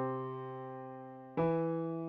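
Software piano playback of a C-major solfege line, the melody doubled in octaves on two staves. The note Do (C), struck just before, fades, and Mi (E) is struck a little over a second in and left to fade.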